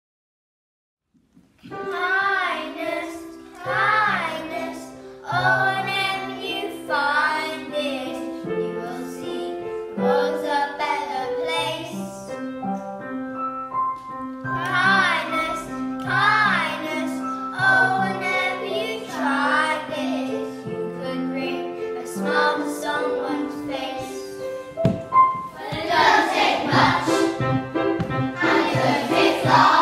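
Children singing a song with piano accompaniment. It starts after a second or so of silence, and about 25 seconds in more voices join and the singing gets louder and fuller.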